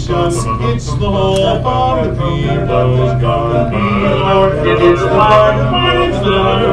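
Male vocal quartet singing in close harmony, the voices moving from note to note over a held low bass note.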